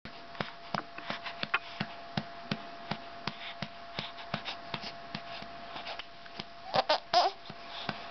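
Steady pats on a baby's back to bring up a burp, about three a second. Near the end the baby makes two short vocal sounds.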